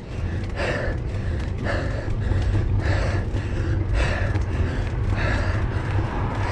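A cyclist breathing hard under heavy effort on a steep climb, with loud puffing breaths about twice a second over a steady low rumble.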